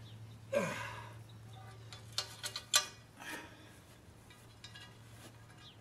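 Steel lawn-roller handle frame being picked up and moved: a quick run of light metallic clinks a couple of seconds in, the last the loudest. A short falling squeal comes about half a second in, and a steady low hum runs underneath.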